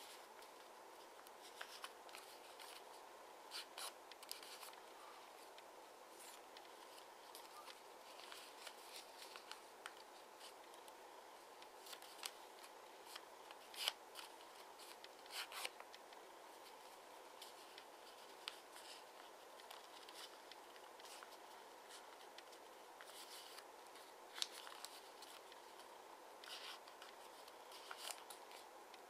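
Faint crisp rustles and crinkles of origami paper being folded and creased by hand, scattered irregularly over a quiet hiss.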